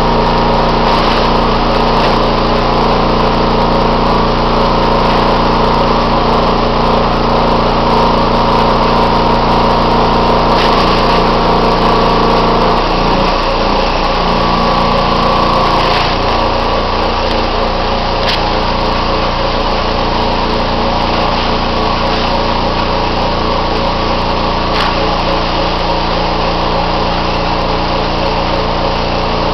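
Sawdust-feeding machinery running with a steady motor drone while it discharges sawdust into a bulk bag. About halfway through, its pitch wavers and shifts, and it gets slightly quieter.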